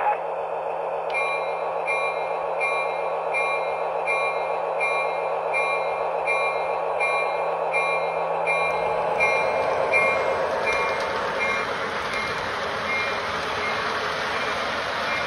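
Lionel LionChief RS-3 diesel model locomotive's sound system playing a steady diesel engine rumble, with a bell dinging about once every three-quarters of a second that fades out near the end. About eight seconds in the train starts rolling and a low rumble of wheels on the track joins in.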